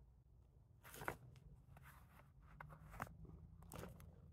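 Faint, short scrapes of a knife cutting a notch into a cottonwood root hand-drill fireboard, a handful of separate cuts spread over a few seconds.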